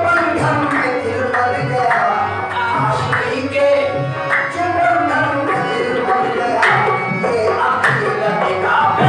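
Sufi qawwali: tabla drumming in a steady rhythm accompanying singing.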